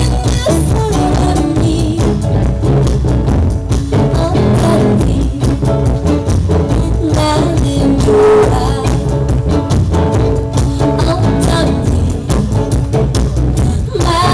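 A live band playing amplified music: guitars, upright double bass and drums, with a steady beat.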